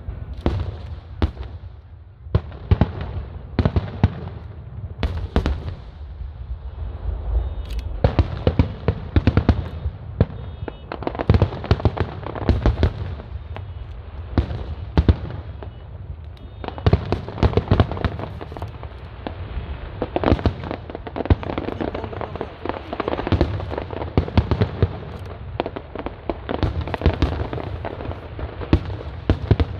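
Aerial fireworks display: a dense, irregular run of bangs and crackling shell bursts, one after another, over a continuous low rumble.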